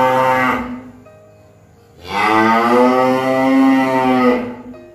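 Cow mooing: one moo trails off within the first second, then a second, long moo starts about two seconds in and lasts about two and a half seconds.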